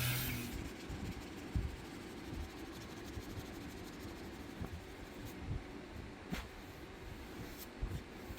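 A power tool running with a steady hiss and hum cuts off about half a second in. Then comes quiet handling noise with a few light knocks and taps.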